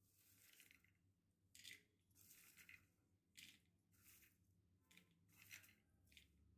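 Peanuts rustling and rattling against a steel bowl as a hand scoops them, in about eight short, faint bursts.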